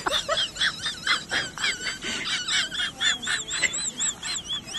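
Small birds chirping rapidly, short high notes repeating several times a second, some wavering up and down in pitch.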